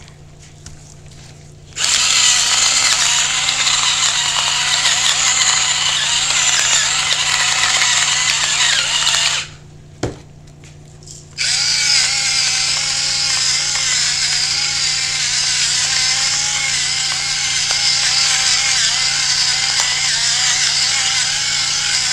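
Electric pepper grinder running, grinding peppercorns in two long steady stretches with a short pause between, a whirring motor tone wavering under the grinding.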